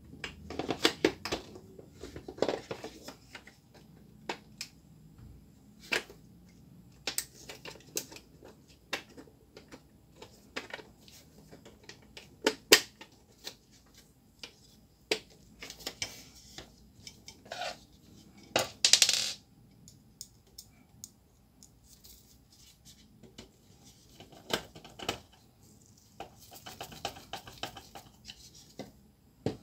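Hard plastic parts of a laser-printer imaging drum cartridge being handled and fitted together: scattered clicks, knocks and rattles, with a short scraping rattle about two-thirds through. Near the end comes a run of faint scratchy ticking as a screwdriver turns a screw into the plastic housing.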